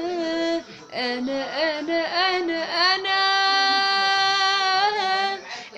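A single voice singing an Arabic song without accompaniment: short ornamented phrases, then one long held note from about three seconds in until near the end.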